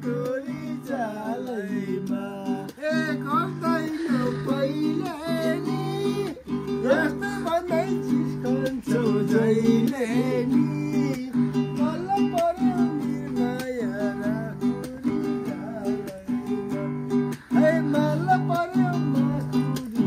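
Acoustic guitar strummed in a steady rhythm, with a bending melody line over it, playing a Nepali dohori folk tune.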